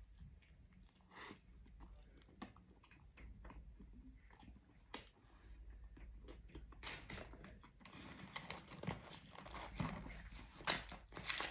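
Close chewing of a spicy chicken sandwich, with soft crunches and wet mouth sounds. Crinkling and rustling of foil wrappers join in from about seven seconds in.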